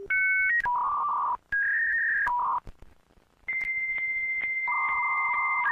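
Electronic beep tones in a quick sequence, changing pitch every half second or so, then a long steady high beep from about three and a half seconds in, joined by a lower tone about a second later.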